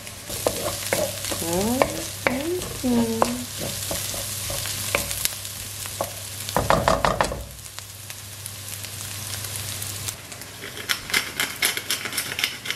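Diced sujuk and onions sizzling in a nonstick frying pan, stirred with a wooden spatula that scrapes and taps the pan, with a louder clatter about seven seconds in. Near the end a pepper grinder is twisted over the pan, a quick run of ratcheting clicks.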